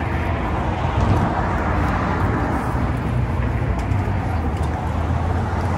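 Steady outdoor background noise: a low, even rumble of road traffic.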